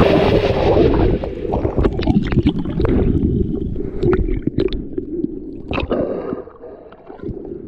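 Sea water sloshing and gurgling around a GoPro action camera held at the surface as it dips under and comes back up, with sharp splashes throughout. It fades away over the last couple of seconds.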